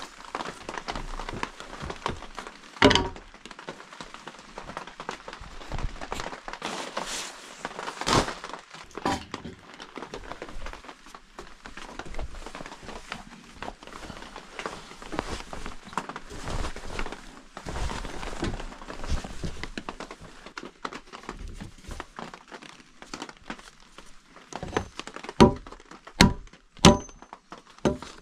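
Wood knocking and rustling as logs and a tarp are handled, with a few sharp knocks. Near the end, a hatchet starts chopping into a log in quick, steady blows, roughly three every two seconds.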